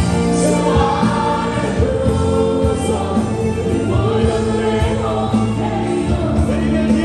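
A large congregation singing a gospel worship song together, led by a man singing into a microphone, over amplified instrumental accompaniment with a steady beat.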